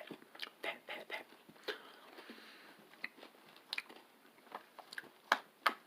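Quiet close-up chewing of a chicken sandwich, with scattered wet mouth clicks and smacks.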